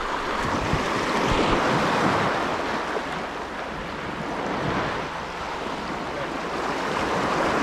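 Small waves surging and washing over rocks at the water's edge, swelling and ebbing, with wind buffeting the microphone.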